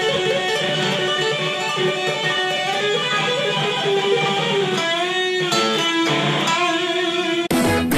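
Electric guitar playing a sustained lead melody, with notes bent up and down about five and six seconds in. It cuts off suddenly near the end.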